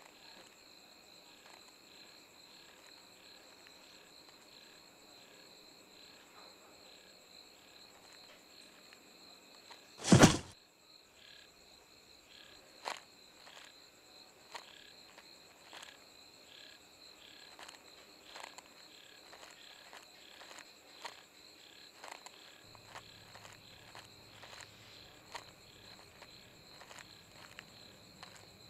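Night insects, crickets, chirping steadily in a high pulsing trill, with one loud sharp bang about ten seconds in and scattered light clicks after it. A low hum comes in near the end.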